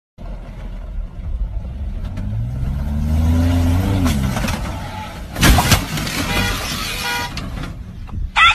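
Pickup truck engine revving hard as the truck climbs a sand berm, rising in pitch and then dropping off about four seconds in. A loud thud about five and a half seconds in as the truck comes down hard on the far side.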